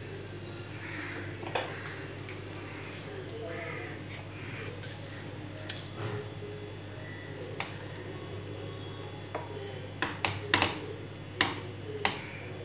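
A utensil clicking and scraping against a stainless steel pan of thick custard halwa: a few sharp knocks spread out, then a quick cluster of them near the end.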